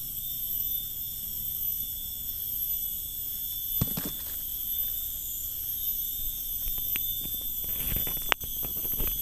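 Steady high-pitched drone of tropical forest insects, several pitches sounding together. A few clicks and rustles come about four seconds in and again near the end, the sharpest just past eight seconds.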